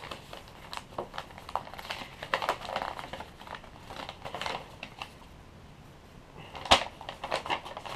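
Folded paper instruction sheet being unfolded and handled, with crinkling and rustling and many small crackles. A single sharp crack, the loudest sound, comes near the end.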